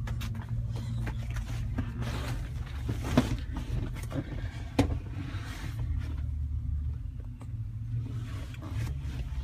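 Phone microphone handling noise as the phone is moved around a car interior: rustling and rubbing against the upholstery, with two sharp knocks about three and five seconds in, over a steady low rumble.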